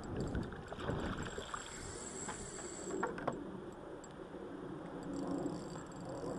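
A hooked trout splashing and thrashing at the water surface. Irregular clicks and knocks run through the first three seconds, with two sharp clicks about three seconds in.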